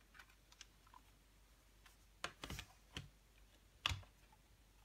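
Plastic CD jewel case being handled and opened: a few faint taps, then a cluster of clicks and rattles about halfway through, and one sharp click, the loudest, about four seconds in.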